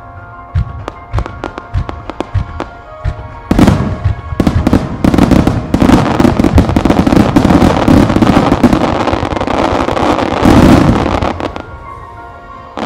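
Starmine fireworks going off: separate bangs at first, building about three and a half seconds in to a dense, continuous barrage of shell bursts that thins out near the end. Music plays underneath.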